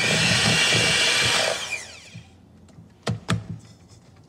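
Electric hand mixer beating thick batter in a stainless steel bowl. It runs for about a second and a half, then winds down and stops, and a couple of light knocks follow near the end.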